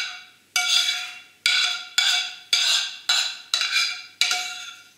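A utensil knocking repeatedly against a glazed ceramic serving dish to shake out thick parsley sauce. There are eight sharp strikes, about two a second, and each rings the dish at the same pitches before fading.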